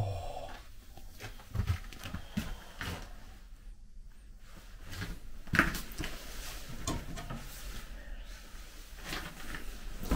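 Scattered light knocks and clicks of someone moving about and handling fittings in the small toilet compartment and vestibule of a passenger railway carriage, a sharper knock about five and a half seconds in.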